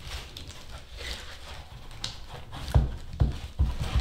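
Plastic-wrapped telescope being pulled out of its foam insert in a cardboard box: rustling plastic, then several dull knocks in the last second and a half as the tube bumps against the foam and box.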